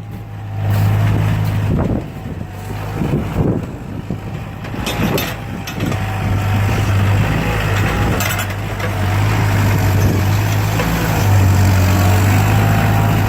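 Skid-steer loader engine running steadily under varying load, its loudness swelling and easing as it works.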